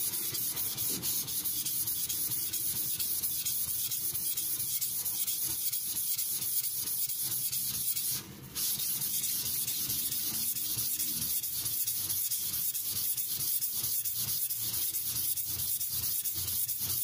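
Shirogami carbon-steel nakiri blade being stroked back and forth on a wet 1200-grit King water stone with slurry: a steady gritty scraping with a rhythm of strokes. It breaks off briefly about halfway through.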